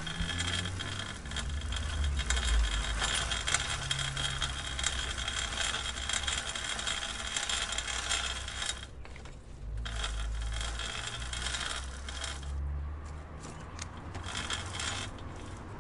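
Bicycle chain clicking as the bike is ridden: a dense run of fine, rapid mechanical ticks over a low rumble. It thins out briefly about nine seconds in and again near the end.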